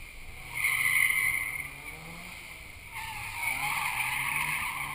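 Drift cars' tyres squealing over the sound of their engines: one loud screech from about half a second in, fading by two seconds, then another wavering screech from about three seconds in.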